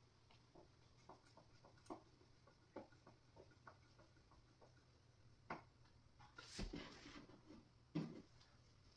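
Near silence broken by faint scattered clicks and taps of furniture parts and hardware being handled, with three louder knocks in the second half.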